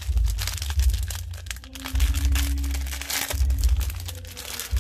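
Plastic packaging crinkling as a phone case is handled and unwrapped, over background music with a heavy bass beat.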